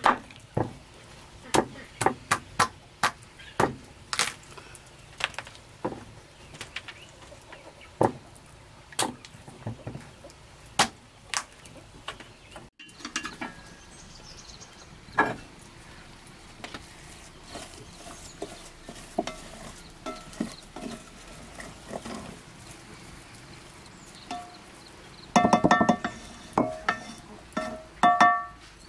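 A knife chopping into fruit on a wooden chopping block, with sharp strikes about once or twice a second. After a pause with faint scattered clicks, a metal pot lid clanks and rings against the cooking pot several times near the end.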